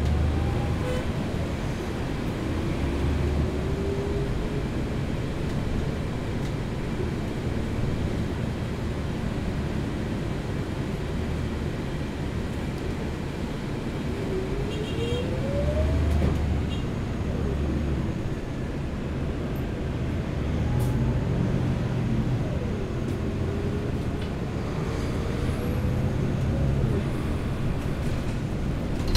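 Riding inside a city bus in traffic: a steady engine and road rumble, with a whine that rises in pitch several times as the bus pulls away and speeds up.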